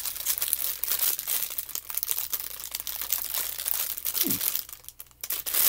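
Plastic packaging crinkling and rustling as it is handled and pulled open, with a short lull near the end.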